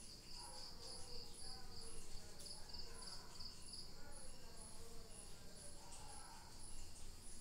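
Insects, likely crickets, chirping steadily in high-pitched pulsed trains, the pulses repeating about twice a second.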